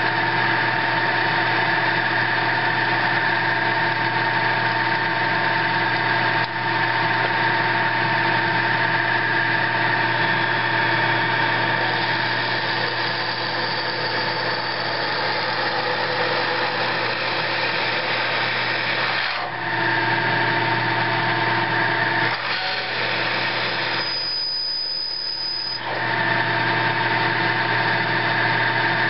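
Milling machine spindle running steadily in high range with a 0.260-inch twist drill cutting a hole through a metal plate. A brief high squeal comes from the cut about 24 seconds in.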